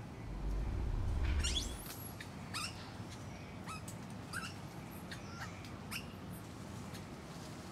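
A low rumble in the first couple of seconds, then a series of short, high chirping calls, about half a dozen, each a quick sweep in pitch.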